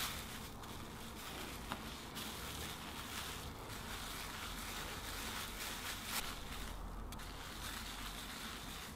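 Bubble wrap rustling steadily under a hand as it is rolled in circles over a wet, soapy wool felt ball, with a couple of faint clicks.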